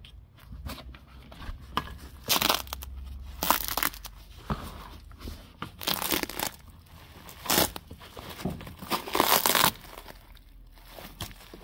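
Old bitumen sound-deadening sheet being torn and broken off a car's floor pan by a gloved hand, a 1994 Mazda 323 under strip-down. It comes as irregular crunching, tearing bursts of a second or less, more of them in the second half.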